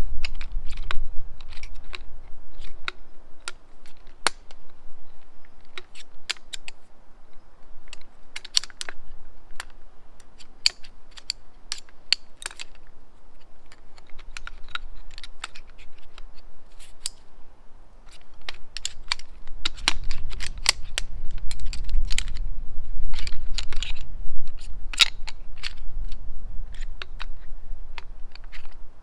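Frame of a folding camping chair being folded up by hand, its legs clicking and clacking against each other and the hub in quick irregular bursts. A low rumble swells up in the last third.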